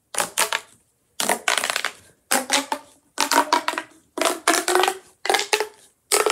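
A plastic pop tube fidget toy being stretched and squashed over and over. Each pull or push gives a burst of rapid crackling pops from the ribbed tube, about six bursts roughly a second apart.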